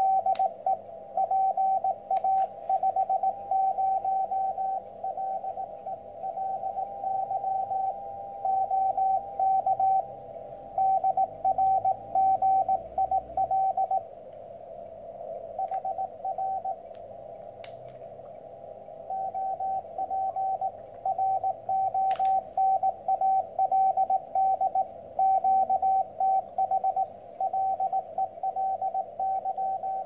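Morse code received on a Soda Pop single-band 40 m CW transceiver: a steady mid-pitched tone keyed in dots and dashes over a band of receiver hiss, with a pause of a few seconds about halfway through. It is another station answering in a contact, sending name, location and "how copy?" before handing back with K.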